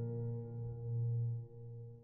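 Background music: a single bell-like chord rings on and slowly fades, over a low note that swells and dips. It tails off near the end.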